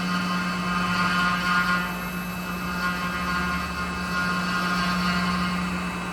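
UGINT UT650 vertical machining center (BBT30 spindle) cutting a metal part: a steady machine hum under a high whine from the spindle and cutter that swells and fades.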